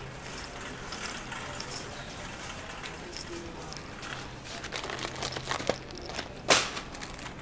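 Store-aisle handling noise of shopping carts and packaging: light rustling and small rattles over a steady low hum, with one sharp knock about six and a half seconds in.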